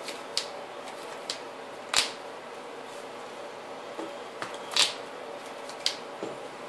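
Scattered sharp taps and clicks, about six in all, over a steady faint hum. The loudest come about two seconds in and just before five seconds in.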